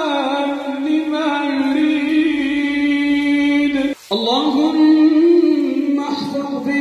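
A man's voice chanting an Arabic supplication in long, held, ornamented notes that waver slowly in pitch. It breaks off for an instant about four seconds in, then picks up on a new drawn-out note.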